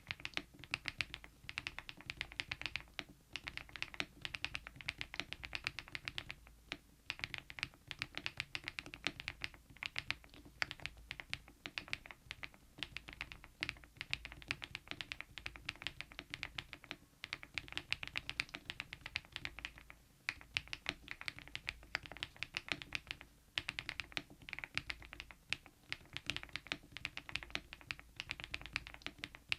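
Fast typing on a mechanical keyboard fitted with KeyTok Godzilla dye-sublimated keycaps: a dense, steady stream of key clicks broken by a few brief pauses.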